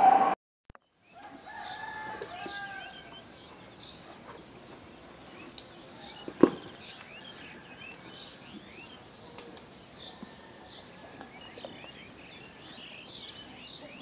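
A loud steady tone cuts off abruptly at the very start. After a moment's gap comes a chorus of many birds chirping and calling, with a lower drawn-out call about a second and a half in and a single sharp knock about six and a half seconds in.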